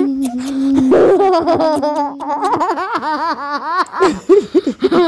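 A child laughing: after a long held vocal sound, a run of quick laughs, each rising and falling, comes in the second half.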